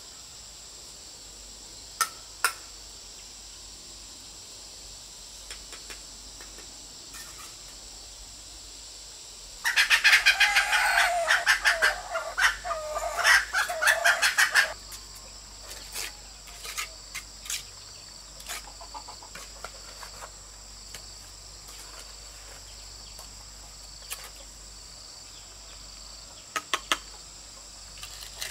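Poultry calling in a loud, rapid rattling burst that lasts about five seconds near the middle, over a steady high drone of insects. A few sharp knocks come shortly after the start and again near the end.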